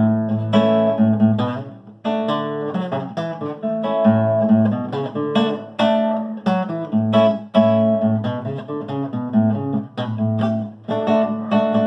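Acoustic guitar playing an instrumental passage of strummed and plucked chords in a steady rhythm, with no singing.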